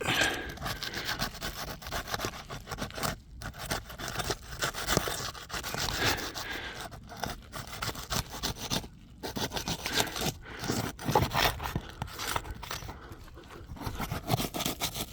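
Asphalt roof shingle being pried up by hand, with irregular scraping and rubbing that stops briefly twice. The tar sealant strip won't break loose, so the shingle tears through underneath.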